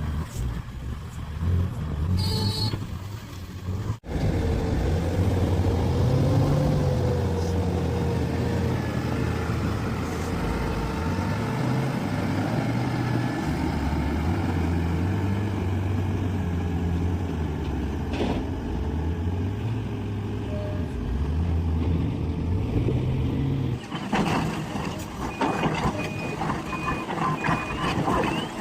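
Heavy diesel mining machinery running, the engine note rising and falling as it works. Near the end a reversing alarm beeps in a steady series.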